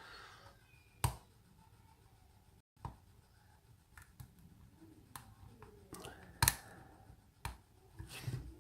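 Lock picking: a hook pick and tension bar working the pins of a custom Albert Lebel lock cylinder, heard as a handful of separate small clicks and taps, the loudest about six and a half seconds in.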